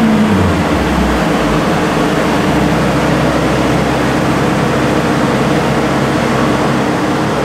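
Mercedes-Benz C450 AMG's twin-turbo V6 through a Meisterschaft GTC cat-back exhaust, running at a steady low drone under a dense wash of road and wind noise.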